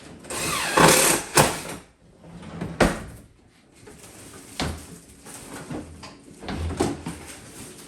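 A kitchen cabinet drawer sliding along its runners, followed by several separate sharp wooden knocks as the drawer and its loose face are handled.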